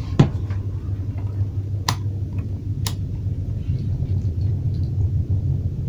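Three sharp clicks of multimeter test-probe tips tapping the contactor's metal terminals, the first and loudest just after the start, over a steady low hum.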